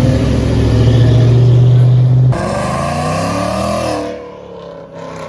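Car engine held at a steady high rev, then after an abrupt change a car engine whose pitch falls as it fades away, like a car passing.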